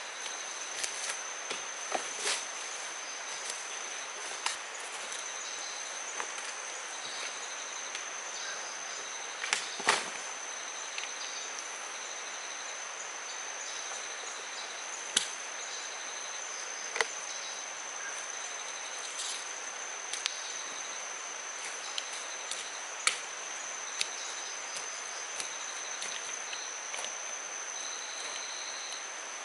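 Tropical forest insects: a steady high-pitched drone with shorter chirping calls coming and going over it. Scattered sharp clicks and knocks stand out here and there, the loudest about ten seconds in.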